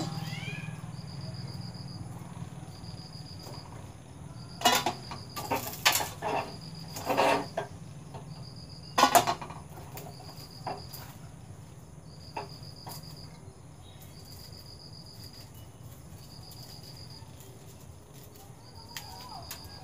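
A cricket chirping in short, high, evenly spaced trills about once a second, over a low steady hum. A handful of sharp knocks and clinks come in the first half, from hands working at the kitchen bench.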